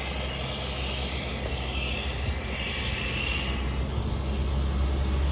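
Cessna Grand Caravan amphibian's turboprop engine and propeller running at taxi power: a steady low drone with a hiss above it, growing slowly louder toward the end.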